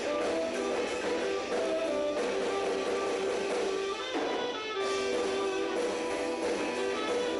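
Rock music led by strummed guitar, with sustained notes.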